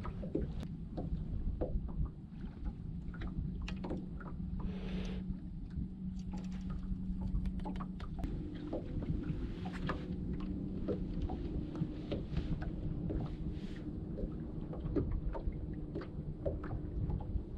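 Small boat's outboard motor running steadily at low speed, its hum moving to a higher pitch about eight seconds in, over a constant low rumble with scattered small clicks and knocks.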